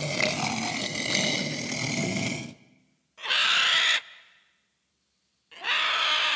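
A walrus calling in one long, noisy call of about two and a half seconds, then a vulture giving two short, harsh calls about a second and a half apart.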